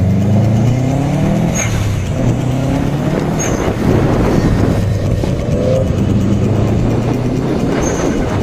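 Turbocharged Subaru Impreza flat-four engine accelerating through the gears, its pitch climbing and then dropping at each gear change, heard from a camera mounted on the outside of the car over road and wind noise.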